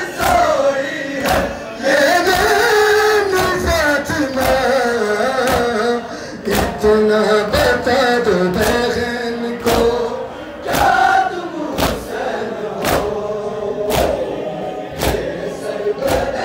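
Noha, a Shia mourning lament, chanted in unison by a group of men, with the crowd beating their chests in matam: sharp slaps about once a second, in time with the chant.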